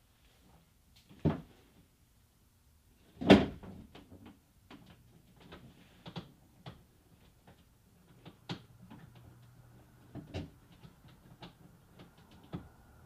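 Knocks, clicks and rattles of hands, parts and wiring inside a car's bare door shell: a sharp knock about a second in, a louder thump at about three seconds, then a scatter of small taps and clicks.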